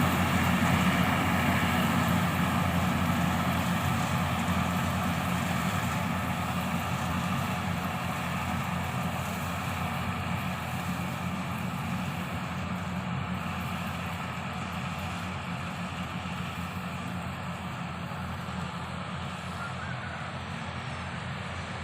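Yanmar YH850 combine harvester running steadily while harvesting rice, its diesel engine and threshing machinery a continuous drone that grows gradually fainter as the machine moves away.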